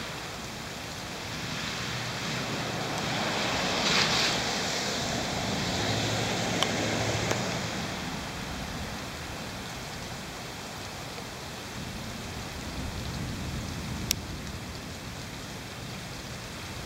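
Steady rain falling, a hiss that swells for several seconds, from about two seconds in, before settling back, with a few sharp ticks of single drops.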